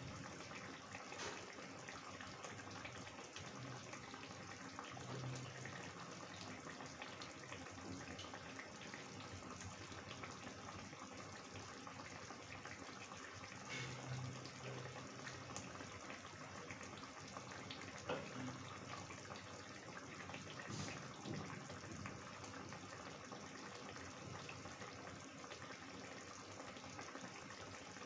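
Chicken curry gravy simmering in a kadai: faint, steady bubbling with small pops.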